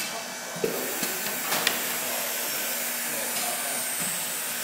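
Steady mechanical hiss from the automated book-binding machinery, stepping up in level just over half a second in, with a few short clicks and knocks in the first two seconds as the robot arm works.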